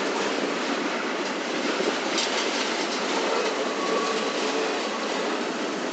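Double-stack container well cars of a freight train rolling past, with the steady noise and clatter of steel wheels on the rails. Faint wheel squeal comes in around the middle.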